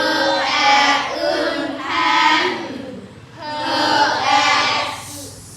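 Children's voices reading phonics words aloud together in a sing-song chant, in three drawn-out phrases.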